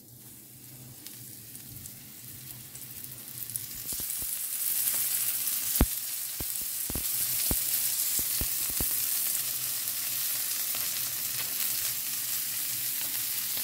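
Rava-coated sole fillets sizzling in hot oil as they are laid into the pan one after another. The sizzle builds over the first few seconds and is louder and steady from about four seconds in, with a handful of sharp pops in the middle.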